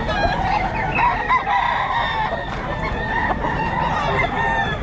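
Gamecock roosters crowing, long held calls one after another.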